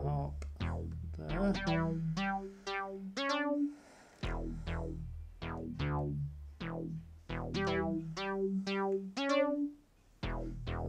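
Synthstrom Deluge groovebox playing a looped sequence of short plucked synth notes over low bass notes. The loop repeats about every six seconds, with a brief drop-out before each repeat.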